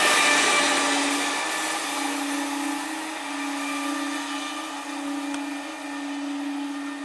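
Electric local trains (EMUs): a steady electric hum over a rush of wheel and rail noise that dies down over the first few seconds.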